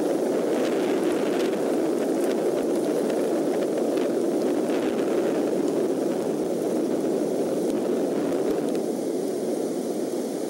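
Steady rushing noise of wind and rain at the nest-cam microphone, with faint rustles in the first half as bald eaglets flap their wings on the nest.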